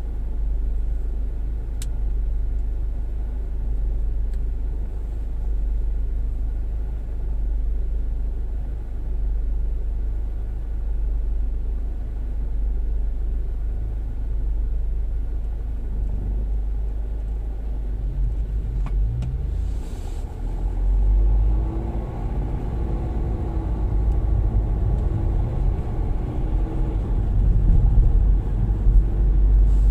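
Car engine and road rumble heard inside the cabin. A steady low hum while the car is held in queued traffic, then from about two-thirds of the way through, the engine note rises as the car pulls away. The road and tyre noise grows louder as it gathers speed.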